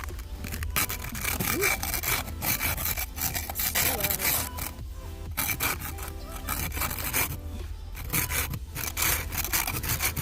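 Snow scraper scraping snow and ice off a car's window in repeated rough strokes, about one a second, over a steady low hum.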